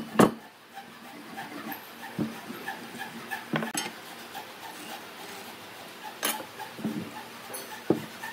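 Scattered knocks and clinks of heavy hardwood beams and a metal speed square being handled and set down on a wooden workbench, the loudest knock right at the start.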